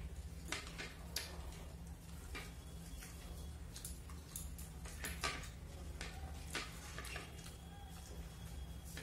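Eating by hand from plates: scattered small clicks and taps as fingers mix and pick at rice and fish against the plates, over a steady low hum.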